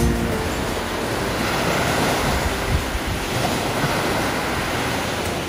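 Ocean surf: small waves breaking and washing up a sandy beach, a steady rushing noise, with some wind on the microphone.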